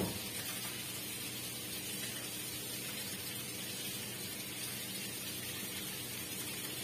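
Steady hiss with a faint low electrical hum from a running deep-well submersible pump setup, the motor drawing about 14 to 15 amps.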